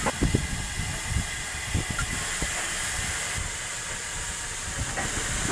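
Steady hiss of steam from the Lambton Hetton & Joicey Colliery tank locomotive No. 29, with a few low thumps in the first second.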